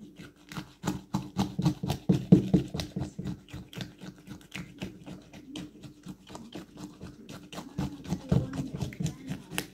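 Plastic spoon stirring and scraping through shaved ice and toppings in a plastic cup of halo-halo: quick clicks and scrapes, several a second.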